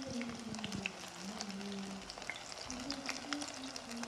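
Food frying in a pan: steady sizzling with scattered sharp crackles.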